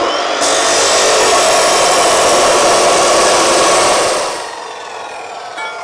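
Abrasive cut-off saw cutting through steel angle iron: a loud, steady grinding screech for about four seconds. The trigger is then released and the disc spins down with a falling whine, and a short clunk comes near the end.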